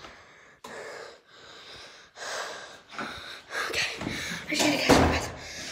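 A girl breathing heavily right against the phone's microphone: a series of loud, rough breaths about one a second, loudest near the end.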